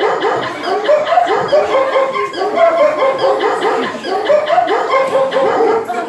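Music playing with a quick run of short vocal notes, each rising and falling in pitch, repeating about three times a second over steady held tones.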